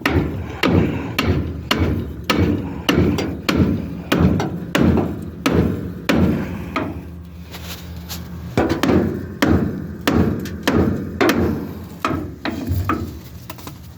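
Repeated hammer blows on a 1950s Chevrolet brake drum and hub assembly, about two strikes a second with a short pause partway through. He is trying to knock the drum loose from the hub.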